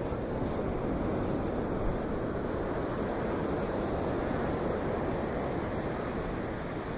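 Storm wind and breaking surf, a steady rushing noise, with wind buffeting the microphone.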